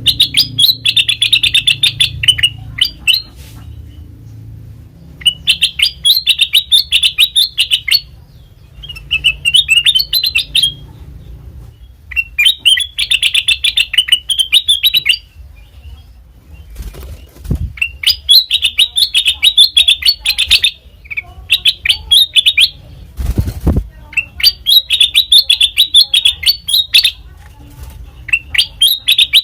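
Kutilang emas bulbul calling in phrases of rapid, bright chirps, each phrase two to three seconds long and repeated after short pauses. There are two dull low thumps in the second half.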